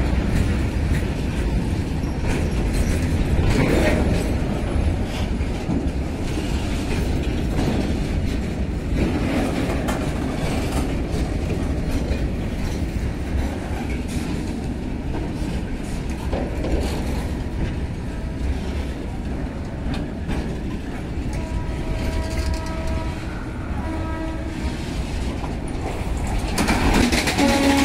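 BTPN tank wagons of a freight train rolling past close by, a steady rumble of wheels on rails. About 22 seconds in, a train horn sounds in two short stretches over the rumble.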